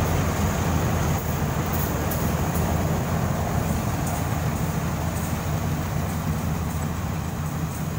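Iseki HC80 rice combine harvester's engine and threshing machinery running steadily while it cuts rice, a deep continuous drone that slowly gets fainter as the machine moves away.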